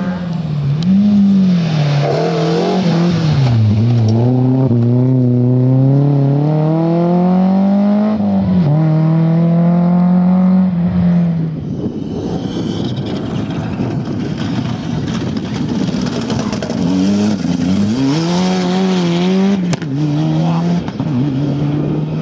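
Rally car engines revving hard at full throttle, pitch climbing and then dropping again and again as the cars change gear. In the middle there is a stretch of rougher, noisier sound with the engine fainter before hard revving returns.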